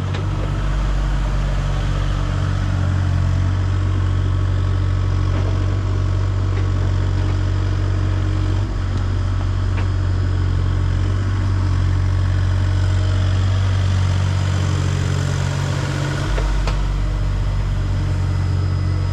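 A truck engine running steadily with a low drone. Its deepest hum shifts slightly about 16 seconds in.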